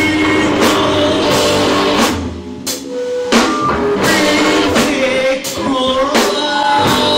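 Rock band playing live: electric guitar, bass and drum kit keeping a steady beat, with a singer.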